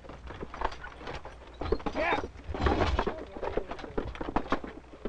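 Irregular knocks and clatter of firewood logs being chopped and handled, with a brief voice-like call about two seconds in.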